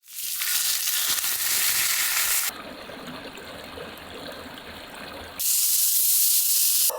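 Meat sizzling loudly on a hot iron griddle over an open fire, a dense hiss with fine crackle. About two and a half seconds in, it cuts to a quieter, lower crackling stretch, then back to the loud sizzle near the end.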